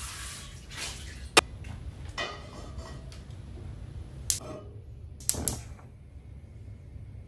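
Cookware handling on a kitchen counter and gas stove: a few sharp knocks and clanks, the loudest about a second and a half in and a quick pair near five seconds, as a frying pan is set down on the stove grate. Afterwards only a faint steady background remains.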